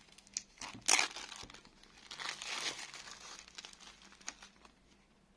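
Clear cellophane shrink-wrap being torn off a phone box: a sharp rip about a second in, then crinkling as the loose plastic is pulled away and crumpled, fading near the end.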